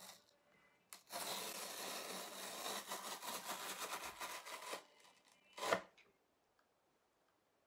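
Cardboard tear strip being ripped along the top of a shipping box: a continuous rough ripping for about four seconds, starting with a click. A single short, sharp sound follows near the end of the ripping.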